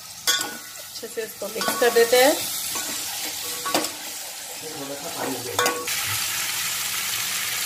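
Steel ladle stirring and scraping sweet potato pieces through hot spiced oil in a stainless steel pot, with the oil sizzling. The ladle knocks against the pot a few times, each knock ringing briefly.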